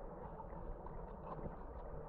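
Mountain stream water running steadily over rocks, with small scattered splashes and light knocks.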